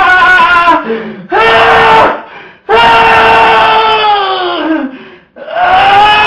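A person's voice holding a loud, high-pitched vocal wail in long notes that sag in pitch at the end, repeated several times with short breaks: the 'most annoying sound in the world' gag.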